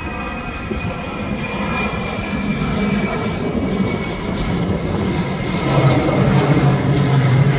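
KC-10 Extender tanker's three General Electric CF6 turbofan engines at climb power as it passes overhead: loud jet noise with several steady whining tones that slowly fall in pitch. It grows louder, and a strong low hum comes in about six seconds in.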